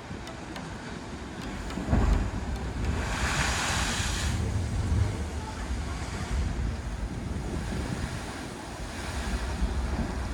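Ocean surf surging on a rocky shore, with heavy wind buffeting the microphone. About two seconds in, a wave surges hard, followed by a loud rushing hiss of water for a second or two.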